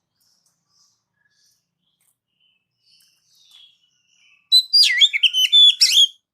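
Oriental magpie-robin (kacer) singing: a few faint chirps, then about two-thirds of the way in a loud, quick phrase of sweeping whistled notes mixed with sharp clicks, lasting under two seconds.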